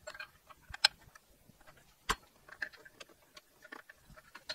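Scattered metallic clicks and clinks of a ratchet and socket being fitted to a 22 mm oxygen-sensor wrench on the exhaust, with two sharper knocks about one and two seconds in.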